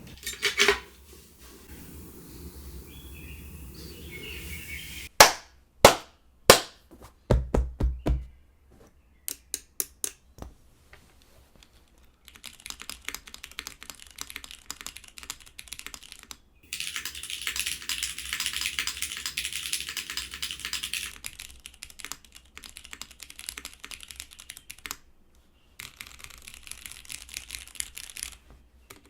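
Typing on an F2-60 mechanical keyboard with an aluminium plate. A handful of loud single key presses come first, then bursts of fast typing, with the busiest run of keystrokes just past the middle.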